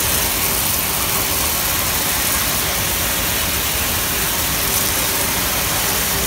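Steady rushing noise of a running RealTech RGB CCD color sorter, with sunflower seeds pouring in a continuous stream from its outlet chute into a woven sack.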